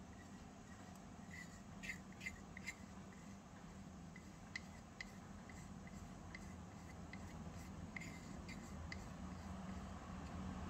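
Soft scraping and scattered light clicks of a small utensil against a miniature metal bowl as batter is scraped out and poured, over a faint low hum.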